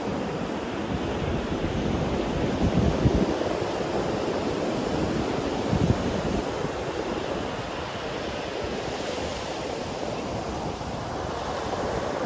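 Ocean surf breaking and washing on a beach, a steady rush of waves. There are two brief low gusts of wind on the microphone, about three and six seconds in.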